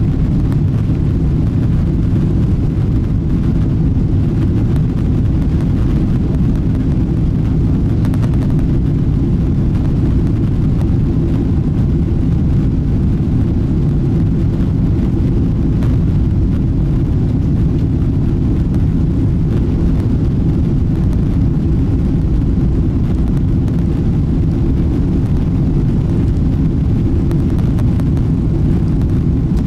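Steady low rumble of a Boeing 777-200ER's jet engines and airframe heard from inside the passenger cabin while the airliner taxis, even in level throughout.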